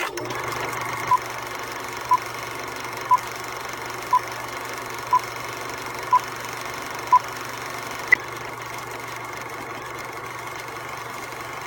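Film projector running steadily with a whirring hum, under a film countdown: seven short beeps one second apart, then a single higher-pitched beep about eight seconds in.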